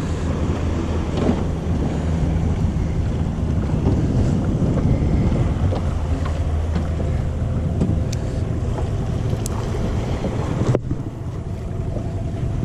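Wind buffeting the microphone over open harbour water, with a steady low hum underneath and a few small ticks. The sound drops out for an instant near the end.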